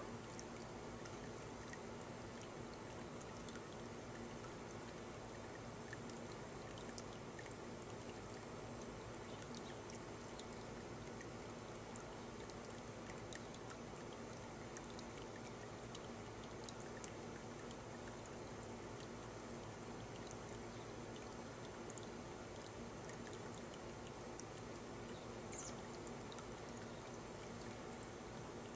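Faint, steady trickle and splash of water falling from a birdbath fountain into its basin.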